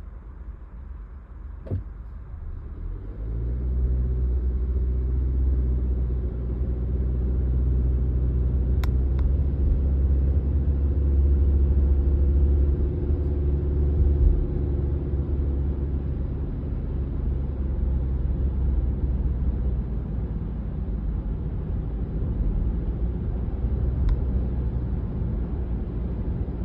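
Car engine and road drone heard inside the cabin as the car accelerates from about three seconds in, its engine tone rising gradually and then holding steady. No ticking is heard from the engine on the acceleration.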